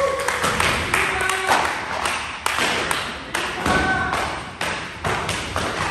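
Jiu-jitsu belts lashing against a student's gi in a rapid, irregular series of sharp slaps: the belt-whipping gauntlet that marks a belt promotion. Brief shouts from the onlookers come about a second in and again near four seconds.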